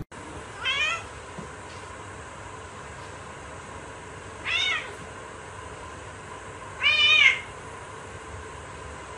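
Domestic cat meowing three times: short, wavering calls, the third the loudest and longest.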